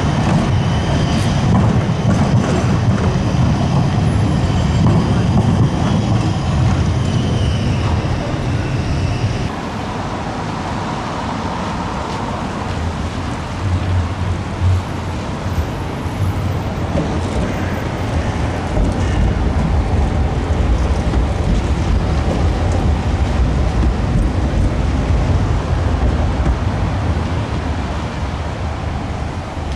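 Tram wheels squealing on a tight curve with a heavy low rolling rumble; the squeal stops suddenly about nine seconds in. After that, a steady rumble of a tram and street traffic rolling across a cobbled square.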